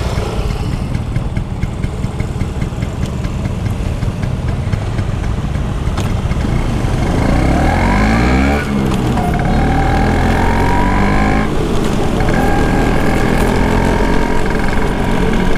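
Vintage Vespa Sprint 150 two-stroke scooter engine running on the road. About halfway through it revs up as it accelerates, and its note drops off sharply twice as it is shifted up through the gears, then it settles into a steady cruise.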